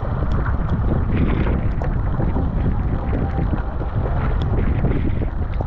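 Wind buffeting the microphone over the rush and splash of water along a Fenn Elite S surfski's hull as the paddle takes strokes.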